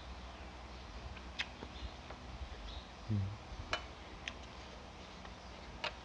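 Eating sounds: sharp mouth clicks and smacks from chewing, about four spread through, with a short low sound about halfway through, the loudest moment.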